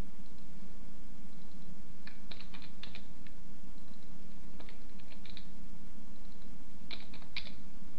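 Computer keyboard keys tapped in three short clusters of clicks, over a steady low hum.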